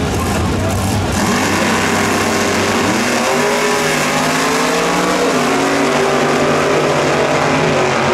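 Two supercharged V8 drag-racing gassers, 1950s Chevrolets, launching off the line and accelerating hard. The engines' pitch climbs, drops back about three seconds in and again near five seconds as they shift gears, then climbs again.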